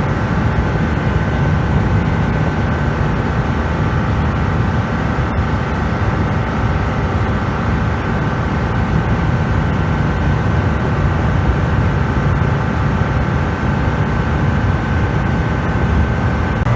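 Motorboat running at steady speed on plane: an even engine drone with a faint steady whine, over rushing water and wind noise.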